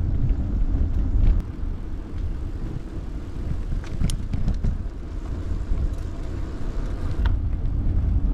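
Wind rumbling on the microphone and tyres rolling on tarmac as a bicycle rides along a road, with a few faint clicks about halfway through.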